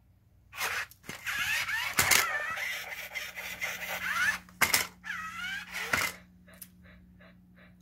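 Toy robot dog playing electronic sound effects from its speaker as it flips into a handstand and back down, with warbling tones that slide up and down in pitch and three sharp plastic clacks. Near the end comes a quick run of short beeps.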